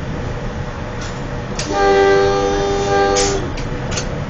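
Train horn sounding one blast of several tones at once, starting about a second and a half in and lasting nearly two seconds, over the steady rumble of the train running on the rails.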